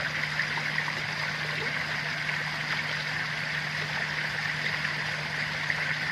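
Running water, a steady babbling flow with an even, unchanging level, over a low steady hum.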